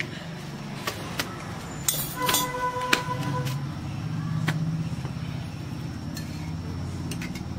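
A low, steady motor rumble, with scattered clinks of steel cooking tongs and utensils at a clay chulha and a short steady tone a little over two seconds in.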